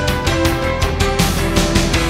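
Background music with a fast, steady drum beat and sustained guitar-like notes, rock soundtrack style.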